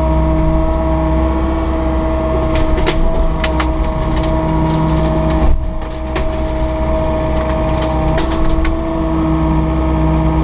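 Takeuchi TB260 compact excavator's diesel engine running steadily under hydraulic work, with a brief dip about halfway through. Clusters of sharp cracks and snaps come over it twice, about two and a half seconds in and again near the end.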